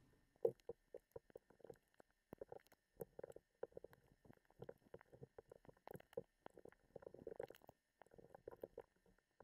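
Faint, scattered clicks and taps of hands handling LEGO Technic plastic pieces and a sticker sheet, coming irregularly several times a second over near silence.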